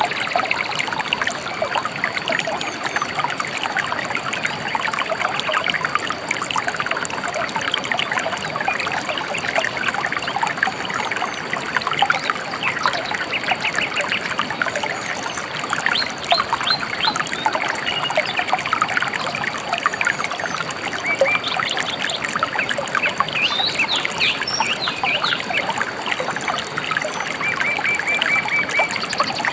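A shallow river trickling and babbling steadily, with small birds chirping over it in short repeated runs.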